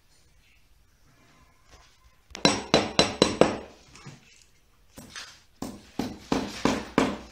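Hammer tapping nail-in cable clips into a wall to fix an electrical cable: quick ringing strikes about four a second, starting a couple of seconds in, a short pause, then another steady run.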